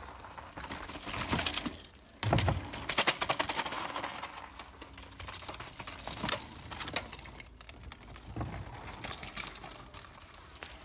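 Bicycle on a dry dirt trail: rapid clicking from the freewheel hub as the bike coasts, with crackly tyre noise over the ground and a thump a little over two seconds in.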